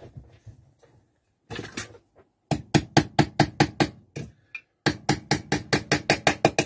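Small hammer tapping a steel panel pin through thin tin-can sheet into a block of wood: one knock, then two quick runs of light, evenly spaced strikes at about five a second, with a short pause between.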